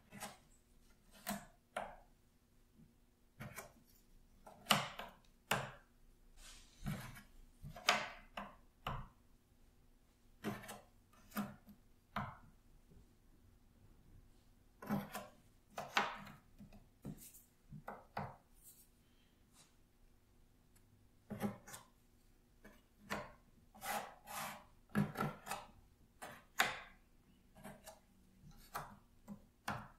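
Cardboard jigsaw puzzle pieces being handled on a puzzle board: picked up, slid and set down, making irregular soft taps and short scrapes, in small clusters with pauses between.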